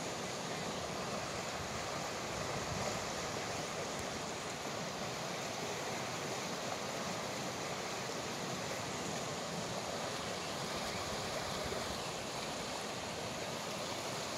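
River rapids rushing, a steady noise of fast water breaking over riffles.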